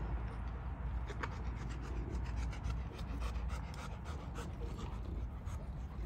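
A dog panting quickly and rhythmically close by, over a steady low rumble.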